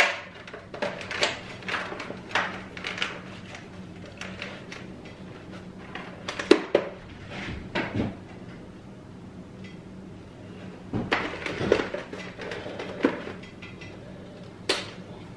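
Plastic clicks, knocks and rustling as a hi-vis modular snowmobile helmet is handled, pulled on and adjusted, its chin bar flipped up. The clicks come in a quick run at first, then scattered ones with a small cluster near the end.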